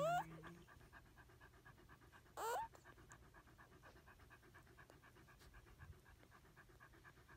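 Pembroke Welsh Corgi mother panting rapidly and steadily during whelping, at about six breaths a second. One short, rising squeak about two and a half seconds in is the loudest sound.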